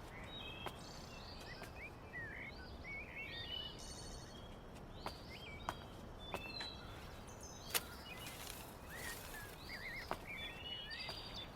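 Small birds chirping and twittering, many short overlapping calls, over a steady low outdoor hiss. A few sharp clicks stand out, the loudest about eight seconds in.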